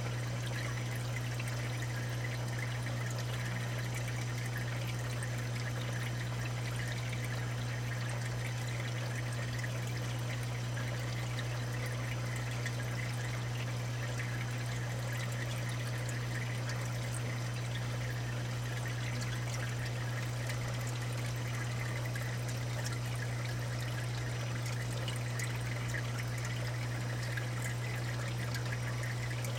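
Saltwater aquarium sump and refugium running: water trickling and splashing steadily over a constant low hum.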